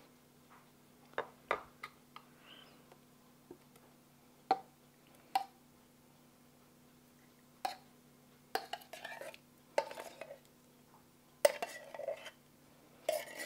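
Metal spoon clinking and scraping inside a tin can, scooping out canned peach slices into a glass baking dish. Scattered sharp clinks, getting busier in the last few seconds.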